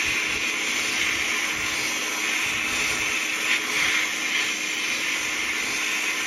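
Sandblast gun in a blast cabinet, a steady loud hiss of compressed air and grit blasting rust off a rusty iron camping-stove burner basket.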